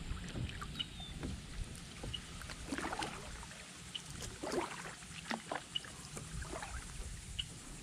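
Kayak paddle dipping into calm water, with scattered splashes and drips, over a low wind rumble on the microphone. A faint, short high chirp repeats every second or two.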